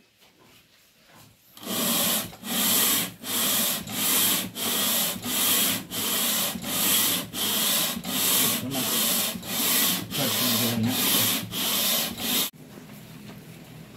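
Aluminium cylinder head of a Toyota 2TR engine being rubbed by hand back and forth, face-down on a flat surface, to lap its deck flat. It makes an even rasping scrape of just under two strokes a second, starting after a quiet second and a half and stopping abruptly near the end.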